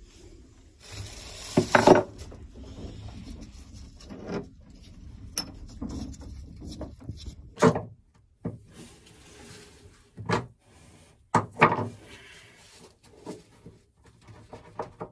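Old marine engine mounts being worked by hand, turned and pulled off their studs and set down: a handful of sharp knocks and clunks, with rubbing and scraping in between.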